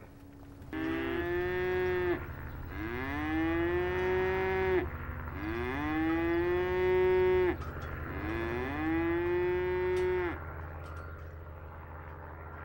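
Dairy cows mooing: four long moos one after another, each rising at the start and then holding steady, with a steady low hum beneath.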